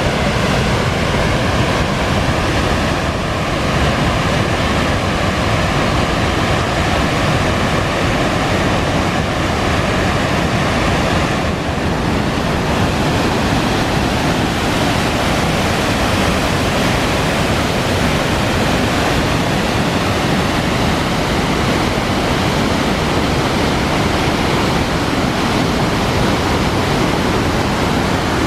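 Cave Falls on the Fall River pouring over its broad ledge, running high with spring snowmelt: a loud, steady rush of falling and churning water.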